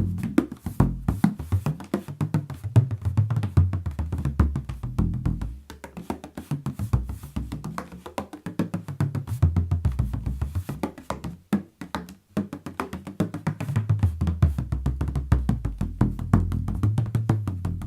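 An 18-inch bodhrán with a very thin skin, played with a straight tipper in a fast, continuous rhythm of deep drum strokes whose pitch moves up and down, with a brief pause about twelve seconds in.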